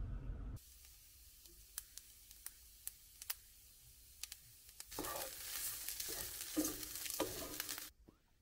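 Cooked white rice frying in a non-stick pan. First comes a quiet sizzle with scattered sharp pops. From about five seconds in the sizzling grows louder, with a few heavier stirring sounds, and it cuts off suddenly near the end.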